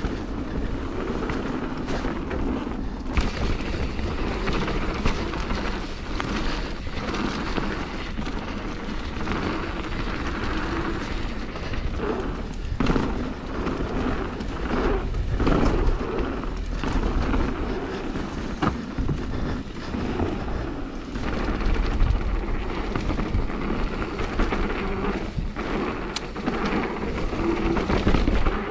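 Mountain bike riding down a muddy, wet trail: a continuous rumble of tyres and wind on the microphone, with scattered knocks and rattles from the bike over rough ground.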